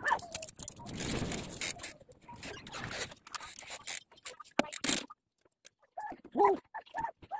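Plastic packaging rustling and small clicks as ink bottles are picked up and set down. A few short pitched calls near the end.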